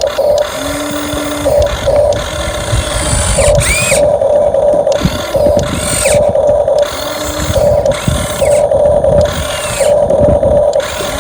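Electric drive motor and gearbox of a radio-controlled dump truck whining in on-and-off bursts as the throttle is worked, with a rumble underneath.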